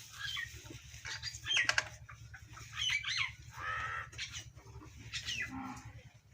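Birds chirping and calling in short, gliding notes, several times over, over a steady low hum.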